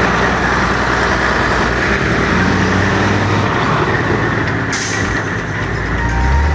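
A radio-controlled model truck's sound module playing a simulated diesel engine running, with a short air-brake hiss about five seconds in.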